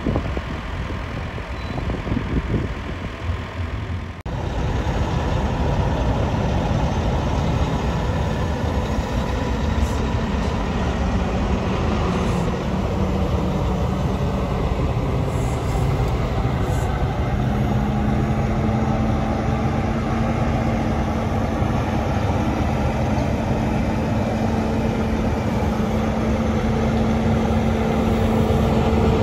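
Semi truck's diesel engine running as the tractor-trailer rolls slowly past. A steady engine tone comes up in the second half and rises slightly in pitch.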